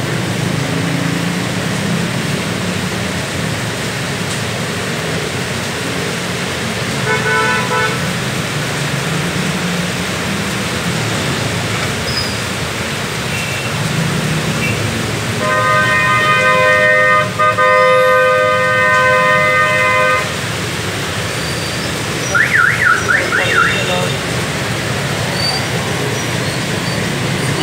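Street traffic in heavy rain: a steady hiss of rain with engines running underneath. A short horn toot comes about seven seconds in, then a long horn blast of about five seconds. A quick warbling tone rises and falls several times near the end.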